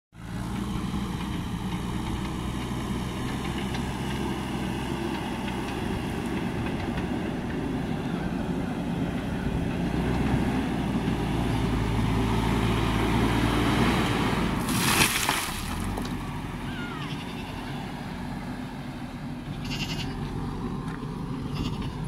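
JCB backhoe loader's diesel engine running as the machine drives with a loaded front bucket, growing louder as it comes close, with a brief hiss about fifteen seconds in.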